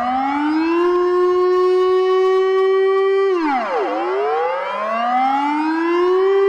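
Civil defense siren wailing: the pitch holds on a high note, falls away about three seconds in, then climbs slowly back up to the high note near the end.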